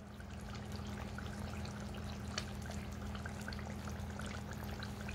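Pot roast juices bubbling in a slow cooker: many small pops and crackles over a steady low hum.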